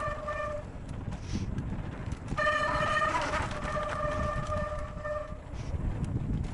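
Mountain bike disc brakes squealing with a steady tone, briefly at the start and again for about three seconds from a couple of seconds in, over a low rumble from the ride down the dirt trail.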